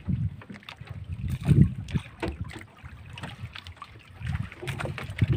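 Fishing net being hauled by hand over the side of a small boat: irregular knocks, thuds and rustles of the wet net against the hull, with low wind buffeting on the microphone.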